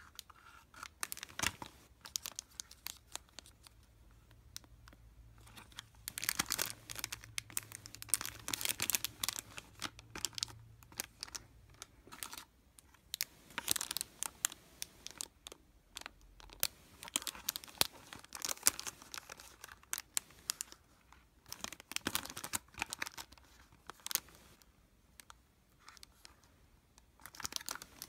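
Blind-box packaging being handled and opened: small cardboard boxes and plastic charm bags rustling, crinkling and tearing in irregular bursts with sharp clicks.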